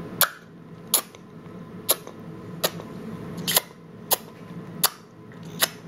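A baby making a string of sharp clicking sounds with his mouth, about eight clicks at a steady pace of roughly one every three-quarters of a second.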